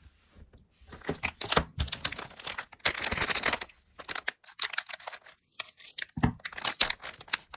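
Thin plastic of a LEGO minifigure blind bag crinkling as it is handled and squeezed: a run of irregular crackles, densest about three seconds in.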